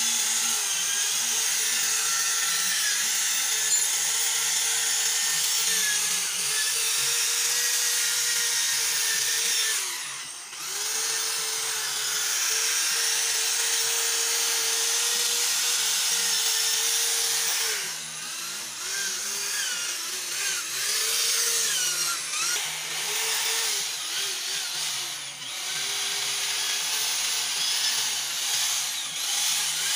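Handheld electric drill running against a transmission case: a steady motor whine for about ten seconds, a short pause, then more running. In the second half it goes in shorter stop-start spells, its speed rising and falling.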